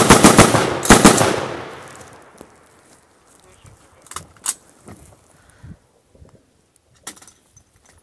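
Close automatic gunfire: a rapid burst right at the start and a second short burst about a second later, echoing and fading over the next second. A few fainter single shots follow later, around four seconds in and again near the end.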